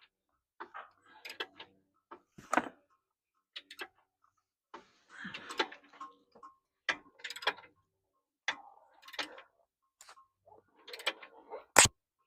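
Irregular clicks and short metallic rattles of a socket wrench and metal parts as fittings are tightened on an excavator, with one sharp, loud click near the end.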